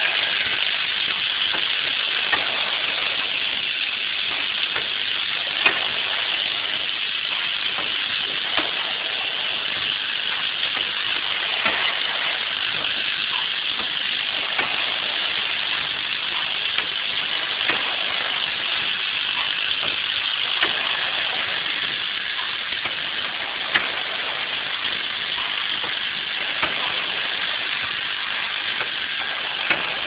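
Automatic pad printing machine running: a steady hiss of machinery with a sharp click about every three seconds as it cycles.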